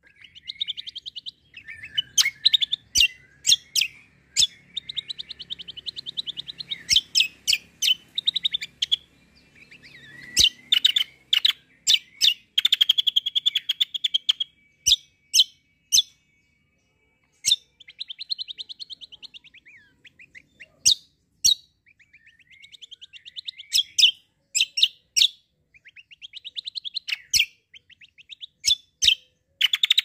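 Caged kecial kombo songbird singing hard: fast chattering trills broken up by loud, sharp single notes, coming in bursts with short gaps.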